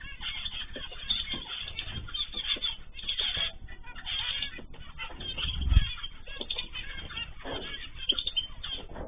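Many small cage birds chirping and calling together, with wingbeats. A single low thump about six seconds in is the loudest sound.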